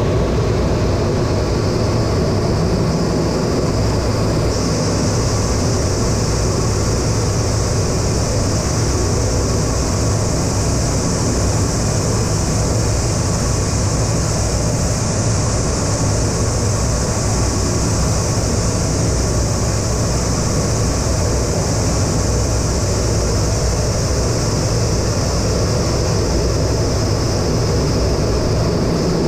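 Steady drone of an A-10 Thunderbolt II's twin General Electric TF34 turbofan engines and airflow, heard inside the cockpit, with a high whine that comes up a little louder about four seconds in.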